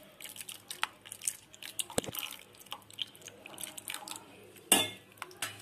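Spatula stirring and scraping in a pan of thick mango mixture while a cornflour-and-milk slurry is poured in, making irregular small clicks and scrapes. There is a sharp knock about two seconds in and a louder knock near the end.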